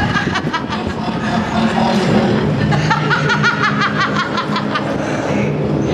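A person laughing in a run of short, rhythmic bursts, over a steady low hum.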